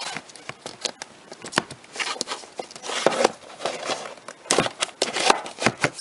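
Plastic DVD cases clicking and clacking against each other as a hand fingers along the row and tilts one case out of the shelf, in a quick irregular run of knocks.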